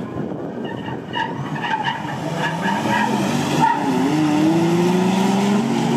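Two 4x4s launching side by side down a drag strip at full throttle: a Nissan Y62 Patrol with a 5.6-litre V8 and a Toyota LandCruiser 80 Series. The engine note climbs steadily, dips briefly a little past halfway, then climbs again.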